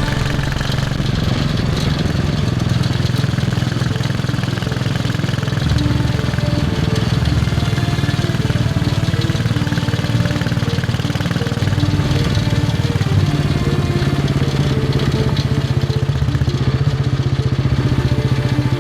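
Royal Enfield Bullet 500's single-cylinder four-stroke engine running under way, a steady rapid thump, its tone shifting twice.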